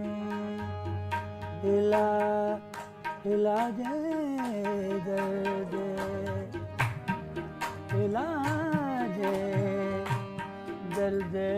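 Qawwali music: a harmonium melody over tabla strokes, with a voice gliding through wordless sung phrases.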